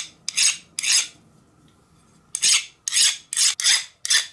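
Hand file scraped in short strokes across the teeth of a hardened steel gear: three strokes, a pause of about a second, then five more. The file skates off without biting, a sign that the heat treatment hardened the gear.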